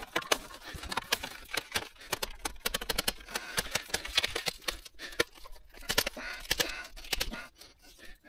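A 10 m Spiderbeam telescopic fibreglass pole being collapsed: its sections slide and clack into one another in a quick, irregular run of clicks and scrapes that stops about seven and a half seconds in.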